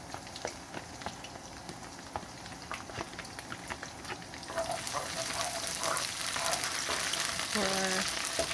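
Garlic sizzling and crackling in hot cooking oil in a pan, getting louder about halfway through.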